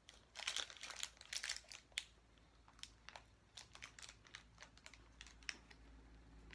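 Plastic protein bar wrapper crinkling as it is handled. There is a dense run of crackles in the first two seconds, then scattered lighter crackles.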